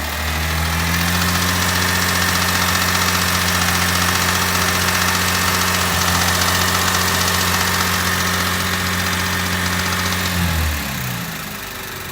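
2010 Chevrolet Camaro's 3.6-litre V6 engine held at a steady raised speed, falling back toward idle about ten and a half seconds in. The owner is chasing a clacking that shows at about 2,000 rpm and below, which he suspects is a loose heat shield.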